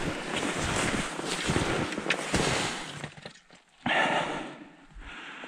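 Footsteps plunging and crunching through deep snow while spruce branches brush and scrape against clothing, with a sudden louder rustling crack about four seconds in.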